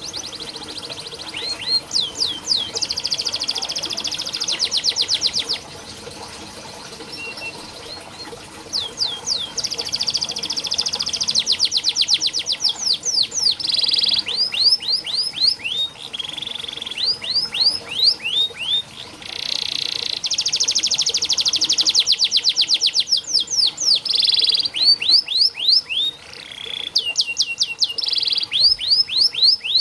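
Domestic canary singing: phrases of quickly repeated, high, falling whistled notes alternating with long, very fast rattling trills (rolls), with short breaks between phrases.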